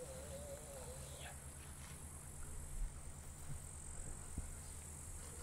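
Quiet open-air ambience: a steady high chirring of insects such as crickets over a low hum, with a person's short wavering growl in the first second and a few faint knocks.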